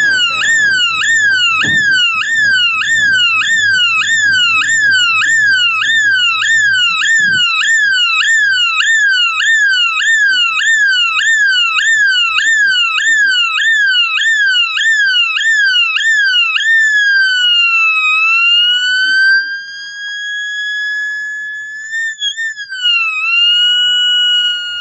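Homemade electronic police-siren circuit sounding. It plays a fast warble of about two falling pitch sweeps a second, then about 16 seconds in slows into a slow wail of rising and falling pitch with a near-steady tone.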